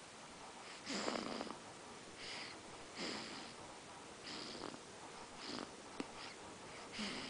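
Three-week-old baby snoring in sleep: a run of noisy snorting breaths about once a second. The loudest comes about a second in.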